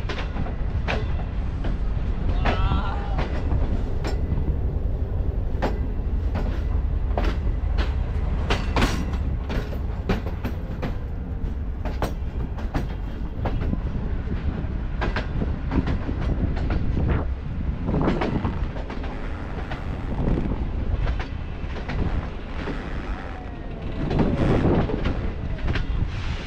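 Passenger train rolling out of the station, heard from an open coach doorway: a steady low rumble with irregular sharp clicks and clunks of the wheels over rail joints and points.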